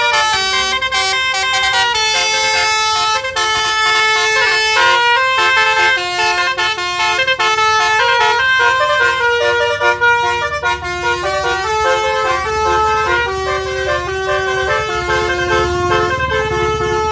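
A tour bus's multi-tone musical air horn ("telolet" horn) playing a tune, a quick, unbroken run of notes stepping up and down. Near the end the bus's engine rumble rises as it pulls away.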